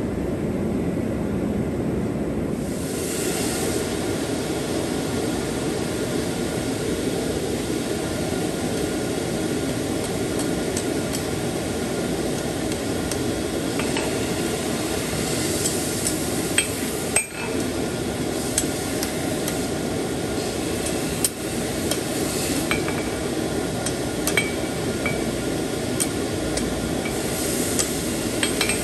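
Steady rushing noise of a running forge, with scattered light metallic taps and clinks from about ten seconds in: small tools or hammer touches on hot iron and the anvil.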